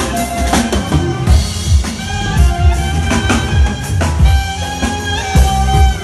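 Live band music: a clarinet playing a melody with long held notes over a drum kit beat.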